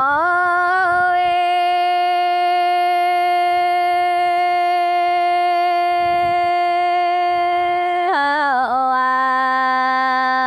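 A single unaccompanied voice singing a Dao folk song (páo dung). It holds one long, steady note, then glides down with a wavering turn about eight seconds in to a lower held note.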